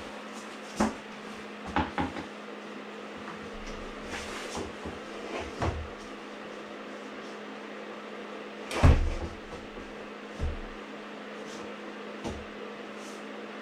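Knocks and thumps of a large wall panel being handled, fitted and pressed into place against a wall, about eight in all, the loudest about nine seconds in. A steady low hum runs underneath.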